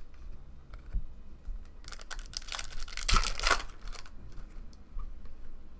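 Foil wrapper of a Panini Prizm Baseball card pack crinkling and tearing as it is opened, a dense crackle lasting about two seconds in the middle, with a few light clicks of card handling around it.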